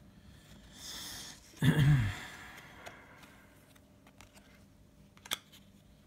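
Trading cards being handled: a brief rustling slide about a second in, then a short voiced sound from the person, the loudest thing here. A few faint ticks follow near the end.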